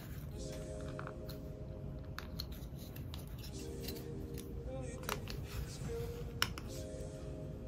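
CADA plastic building bricks and parts clicking as they are handled and pressed together, a scattering of sharp clicks with the loudest a little after six seconds in, over soft background music with held chords that change every few seconds.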